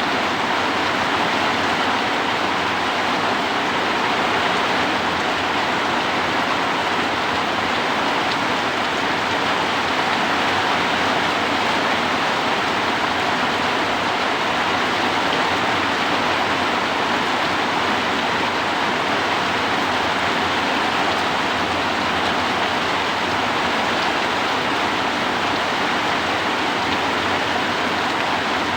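Heavy rain pouring in a steady, even hiss with no letup.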